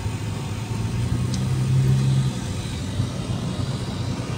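A car heard from inside its cabin: a steady low engine and road drone under an even hiss of strong wind. The drone swells for about a second from a little over a second in.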